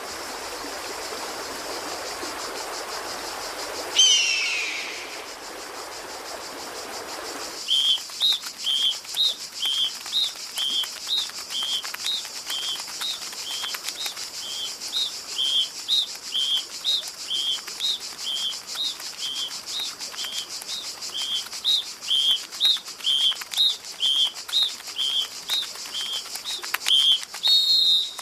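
Wildlife ambience. A steady rushing noise, with a loud falling whistle about four seconds in, gives way about seven seconds in to a steady high buzz. Over the buzz a short high chirp repeats about one and a half times a second.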